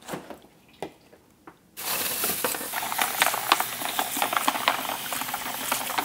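A few soft clicks, then about two seconds in tap water starts running hard into a stainless steel bowl of ice cubes, a steady splashing hiss dotted with small clicks. This is the bowl filling with ice water for the noodles' last rinse.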